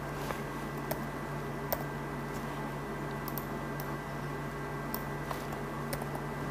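Light, scattered clicks of a computer mouse being clicked, about ten over a few seconds, over a steady low hum.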